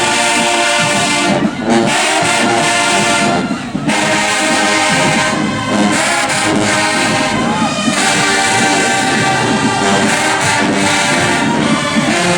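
Marching band brass playing loud held chords and melody lines, with short breaks between phrases.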